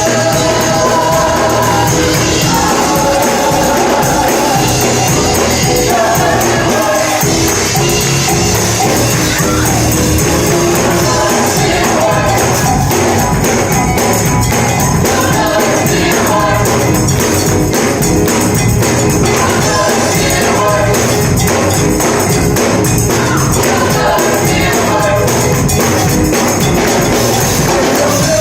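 Live gospel worship music: a choir singing, with a tambourine shaking along.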